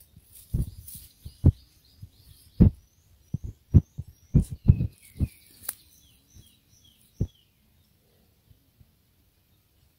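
Irregular low thumps of footsteps on the forest floor, stopping about seven seconds in. A small bird chirps a run of short falling notes from about three to seven seconds in.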